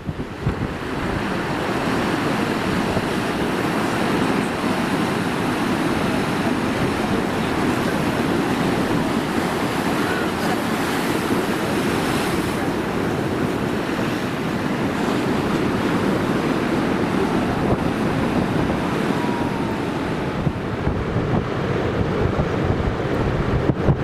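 Heavy storm surf breaking and churning along a rocky shore, with strong wind gusting across the microphone. A dense, continuous wash of noise, gustier near the end.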